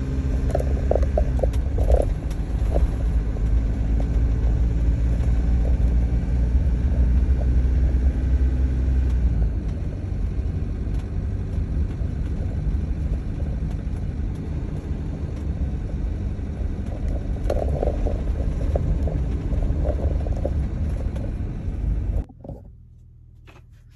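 Motorhome driving through town, heard from inside the cab: a steady low engine and road rumble that eases somewhat about ten seconds in, with a few light rattles twice. It cuts off abruptly near the end.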